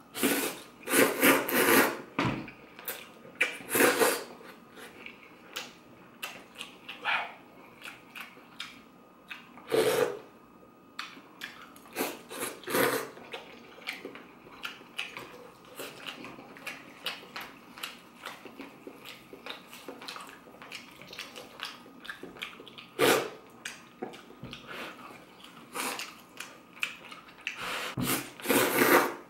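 Slurping of pho rice noodles and broth in several long noisy slurps, the longest about two seconds at the start and again near the end, with shorter ones between. Between the slurps come small clicks of chewing and of chopsticks and a spoon against a ceramic bowl.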